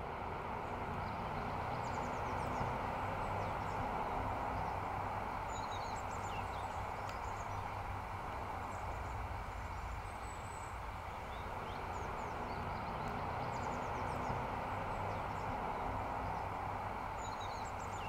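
Outdoor field ambience: a steady, even hush with faint, scattered high bird chirps.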